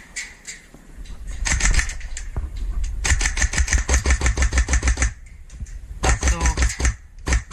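Airsoft electric gun firing on full auto: rapid, evenly spaced shots in three bursts, a short one about a second and a half in, a longer one of about two seconds, and a third starting about six seconds in.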